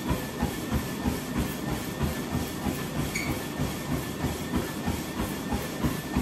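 Treadmill in use: footfalls land on the moving belt in a steady, even rhythm, over the continuous whir of the treadmill's motor and belt.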